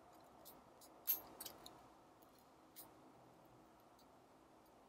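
Faint, scattered small metallic clicks and ticks of tweezers touching the small parts of a Leica M3 camera's shutter speed mechanism, the sharpest about a second in with a few lighter ones just after, over quiet room tone.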